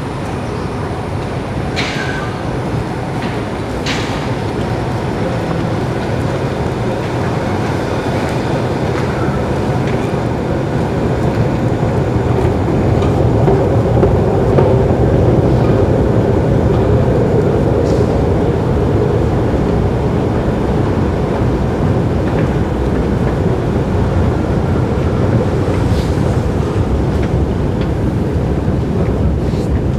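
A long station escalator running on its way down: a steady mechanical rumble and hum that grows louder over the first half, with a couple of sharp clicks a few seconds in.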